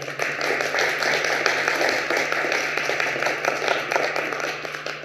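Audience applauding: many hands clapping at once, starting suddenly and fading out near the end.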